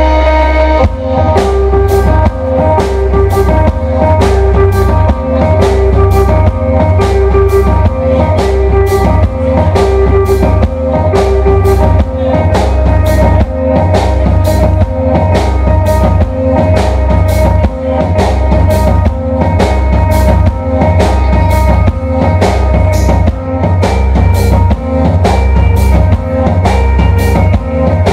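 Live band playing amplified instrumental music: electric guitars and a drum kit. The drums come in about a second in and keep a steady beat of about two strokes a second under the guitars.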